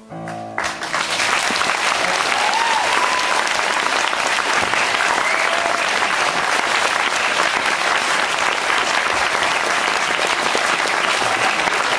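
The last piano chord cuts off in the first second. An audience then applauds, steady, loud and even, through to the end.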